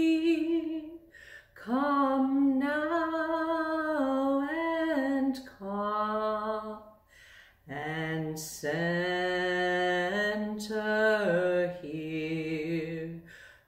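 Unaccompanied singing voice continuing a slow meditative chant, holding long notes with slight vibrato in phrases broken by short breaths, the melody stepping down to lower notes in its second half.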